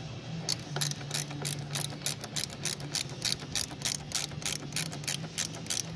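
Socket ratchet wrench clicking steadily, about four clicks a second, as it tightens the clamp on a car battery terminal.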